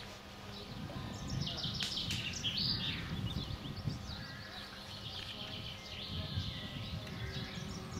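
Small songbirds chirping and twittering in quick runs of high notes, over a low, uneven rumble of wind on the microphone.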